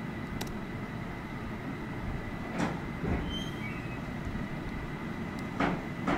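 Steady low background rumble and hiss with a faint high whine, broken by a few short, sharp clicks a few seconds apart as the computer's keyboard and mouse are worked.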